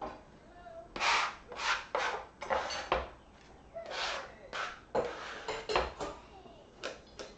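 Hands working ingredients at a kitchen counter: about a dozen short rustling, rubbing strokes at irregular intervals as food is moved between the cutting board and a mixing bowl.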